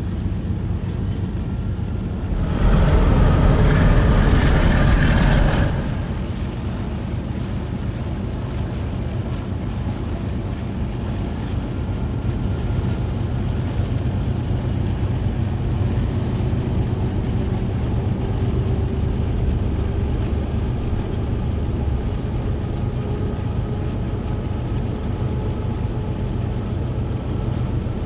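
Two diesel-electric freight locomotives running steadily under power, a low engine rumble heard from a vehicle pacing alongside, with road and wind noise. About two and a half seconds in, a much louder rush of noise lasts about three seconds, then the steady rumble returns.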